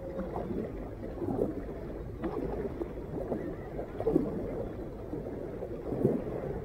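A kayak being paddled through calm shallow water: the paddle blades dip and splash about every two seconds while water gurgles and laps against the hull, over a steady low rumble.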